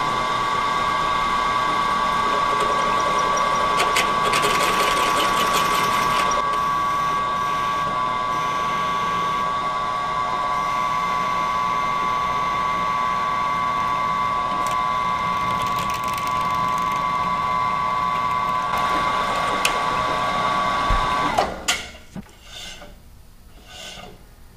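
Milling machine spindle running with a drill bit in its chuck, drilling out a threaded hole deeper before tapping. A steady, high-pitched machine whine stops abruptly about 21 seconds in, leaving a few faint clicks.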